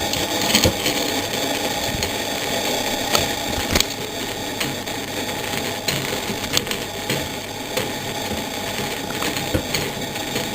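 Screwdriver with a size 10 Torx bit undoing a screw from the radio's front fascia panel: a steady working sound with many small clicks and rattles.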